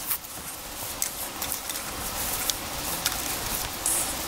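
Wood fire burning in a Solo Stove, a steady hiss with small irregular crackles and ticks.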